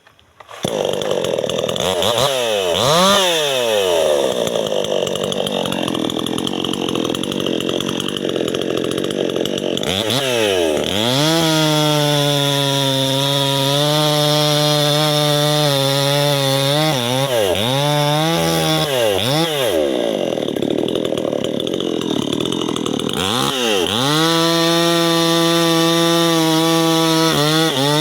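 Two-stroke chainsaw starting about half a second in and revved up and down several times, then running at a steady pitch through long stretches with brief dips and revs between them, as it cuts into a tree.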